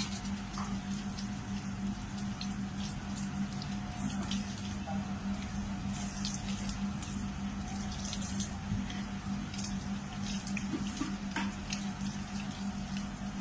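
Tap water running and splashing as hands are rinsed under an ablution tap, with frequent small drips and splashes throughout, over a steady low hum.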